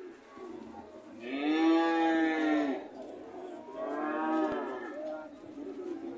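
Cow mooing twice: a long, loud moo about a second in, then a shorter, fainter one about four seconds in.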